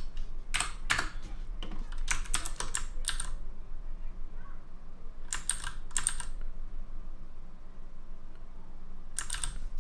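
Computer keyboard keystrokes in short groups of a few sharp clicks, with pauses of one to three seconds between groups, over a faint low hum.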